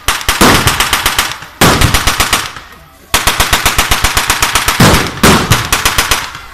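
Machine gun firing blanks in rapid bursts of about ten shots a second, several bursts one after another, each dying away in a short echo.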